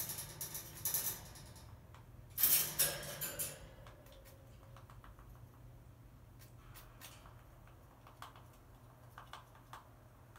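A crow moving about on the wire top of a cage beside a whole apple: two brief rustling, scraping bursts in the first few seconds, then scattered light clicks and taps as it steps on the wire and pecks at the apple.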